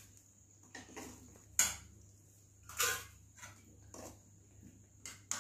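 Steel ladle clinking and scraping against a steel kadai as thick chicken curry is scooped out and served onto a steel plate: several separate clinks and scrapes, the loudest about one and a half seconds in.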